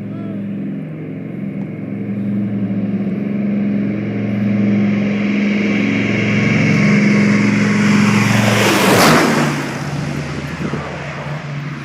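Low-flying aircraft passing close by: a steady engine drone builds in loudness, peaks loudly about nine seconds in, then falls in pitch and fades as it goes away.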